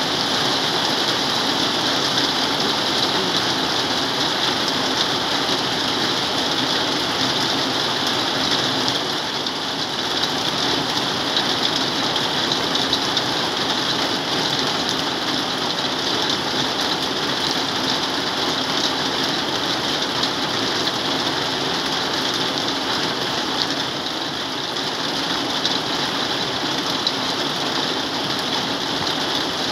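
Heavy rain falling steadily, pattering on a corrugated metal roof close by.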